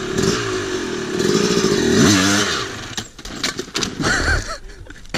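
Yamaha YZ250 two-stroke single-cylinder dirt bike engine revving hard at a big log, its pitch rising about two seconds in. The engine sound then drops away and the bike comes down on the log with a run of clattering and scraping knocks.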